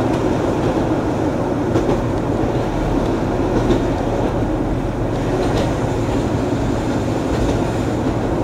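Keihan Ishiyama Sakamoto Line tram running at steady speed, heard from inside the cab: an even rumble of wheels on rail and traction motors, with a few faint clicks about every two seconds.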